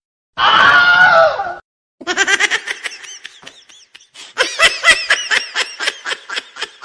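Meme sound-effect audio: a loud, short voice cry about half a second in, then a long run of fast, high-pitched laughter.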